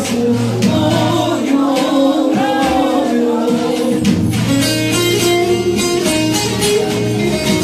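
Turkish folk song (türkü): singing over plucked-string accompaniment and a bass line. The voice stops about four seconds in and the plucked strings play on alone.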